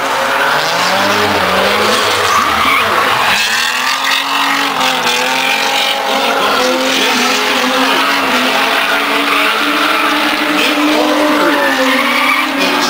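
Drift car sliding sideways: the engine revs up and down with the throttle while the rear tyres spin and squeal on the asphalt.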